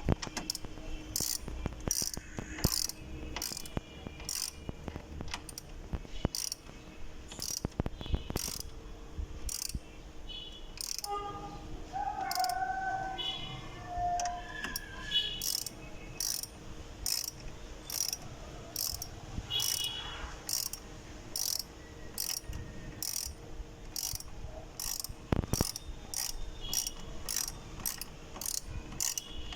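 Ratchet wrench clicking in a long steady run, about two to three clicks a second, as the headlight's mounting bolts are tightened. A few short squeaky tones come around the middle.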